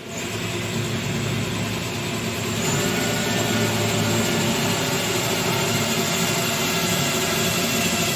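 Cordless drill running steadily without a break, driving a screw through the back of a toilet cistern to fix it to the wall.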